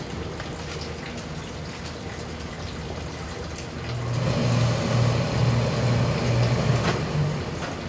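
Hose-fed tailor's steam iron pressing a suit jacket, giving off steam for about three seconds from about four seconds in: a hiss with a low buzz under it, over a steady background hum.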